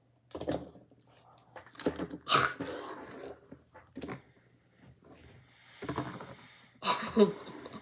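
A slippery fidget toy handled in the hands: several separate bursts of rustling handling noise, the longest one to three seconds in. A short vocal sound comes near the end.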